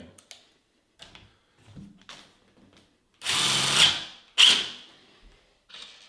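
Cordless power screwdriver driving a long wood screw through a steel door hinge into the wooden door frame. It gives one run of just under a second, then a short burst about a second later as the screw is snugged down, after a few light clicks of handling.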